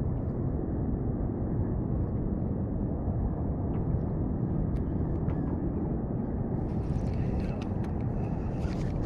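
Wind buffeting the microphone, a steady low rumble. Near the end a few light clicks come from the spinning reel as it is cranked.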